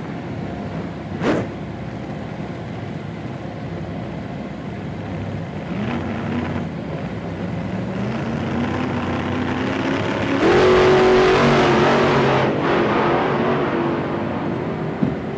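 Car running at freeway speed, heard from inside the cabin: a steady mix of engine, tyre and road noise. The engine climbs in pitch as the car speeds up, and the noise gets louder for a couple of seconds near the middle.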